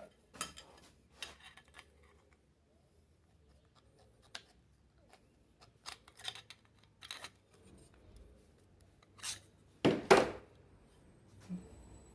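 Pliers working the metal retaining clip off a fan motor's bushing in its housing: scattered small metal clicks and scrapes, with a louder clatter about ten seconds in.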